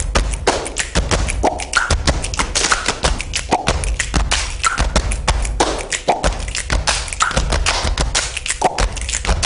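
Programme title theme music: a fast, busy percussion rhythm with a short voiced sound about once a second.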